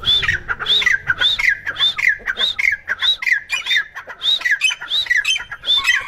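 A caged teetar (francolin) calling loudly over and over: about ten shrill calls, one roughly every half second, each rising briefly and then sliding down in pitch.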